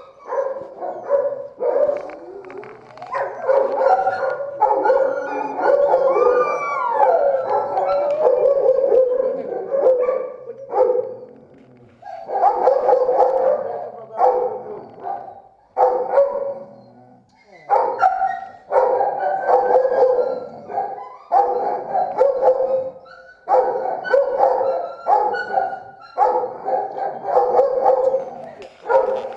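Several kennelled shelter dogs barking and howling over one another in repeated bursts, with one long cry about six seconds in that rises and then falls in pitch.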